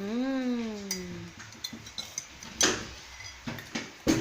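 A wordless hummed voice, rising then falling in pitch for about a second, then a few sharp clinks of a drinking glass and spoon, the loudest near the end.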